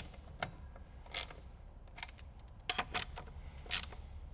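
Hand ratchet clicking in short bursts, about a second apart, as it snugs the nut of a stainless T-bolt hose clamp for final torque on a charge-tube silicone coupler.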